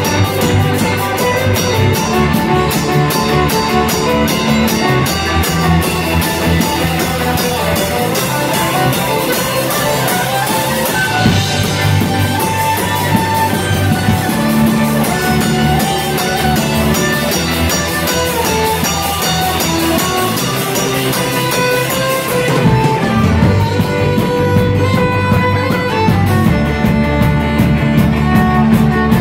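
Live folk-punk band playing loud: fiddle over guitars and a drum kit with a steady beat. The high end of the mix thins out near the end.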